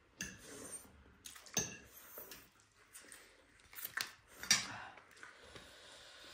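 Eating utensils clinking and scraping against plates and bowls during a meal, with a few sharp clinks about a second and a half in and a cluster of them around four seconds in.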